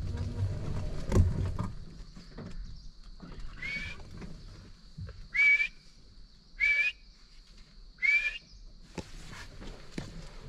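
A bird calls four times: short rising calls about a second and a half apart, over a steady high insect hum. Low rumbling and a knock come in the first two seconds.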